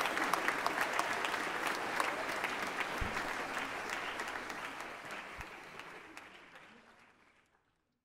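Audience applauding, many hands clapping densely, fading out over the last few seconds.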